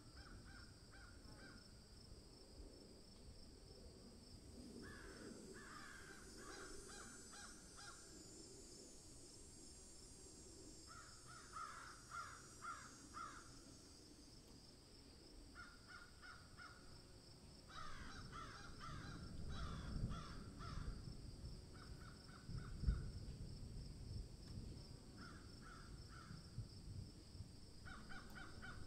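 Faint bird calls in bouts of quick repeated notes, over a steady high-pitched hum. A low rumble and a single thump come about two-thirds of the way in.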